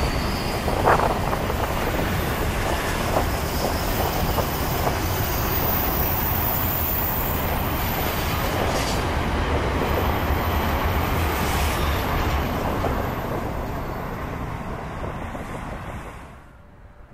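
Container wagons of a freight train rolling past on the rails: a steady rumble and rattle of wheels on track, with a few short clanks in the first few seconds. The noise tapers off as the last wagons pass and drops away near the end.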